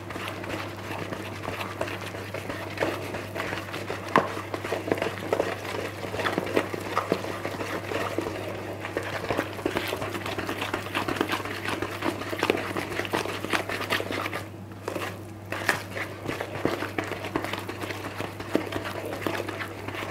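A kitchen utensil stirring and scraping thick tart dough in a mixing bowl, working in the freshly added ground almond, with many small irregular knocks and scrapes against the bowl.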